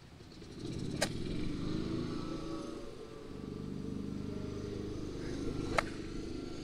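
A golf iron strikes the ball with one sharp click near the end. A small engine runs steadily under it, and another sharp click comes about a second in.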